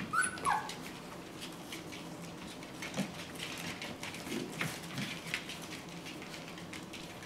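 Australian Shepherd puppies playing: one gives a short high squeal that falls in pitch right at the start, then light patter and scuffling of small paws on tile and pee pads with a few soft grunts.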